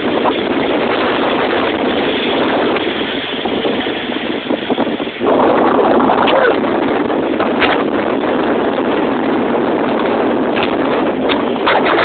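Airbus A380's four turbofan engines at take-off thrust, heard from a distance as a loud steady rushing noise that steps up in level about five seconds in.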